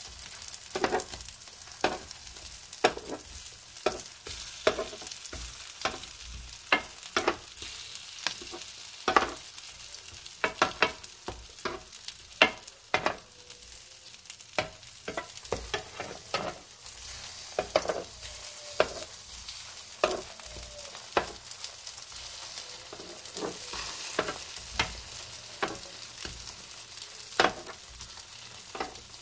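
Egg-battered patties sizzling in oil on a flat griddle, with a metal turner clicking and scraping against the pan again and again as they are flipped.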